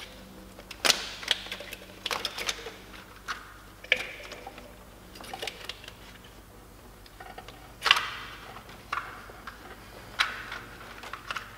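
Irregular clicks and knocks of parts and hand tools being handled while refitting ignition coils on an engine, with the sharpest knock about eight seconds in.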